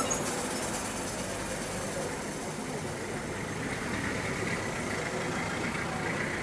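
A steady mechanical background noise, like an engine idling.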